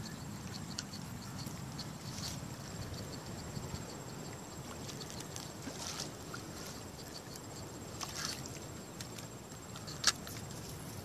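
Hooked tilapia splashing and thrashing at the water's surface as it is played in on rod and line, over a light, even ticking in the first half. A single sharp click about ten seconds in, as the fish is brought to the bank.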